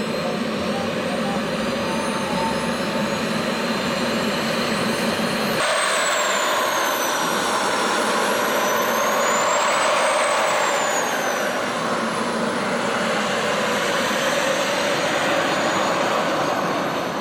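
Four JetCat P120 model jet turbines of a large RC airliner running on the ground, a steady loud roar with a high turbine whine. The sound changes abruptly about five and a half seconds in, after which the whine rises and falls in pitch.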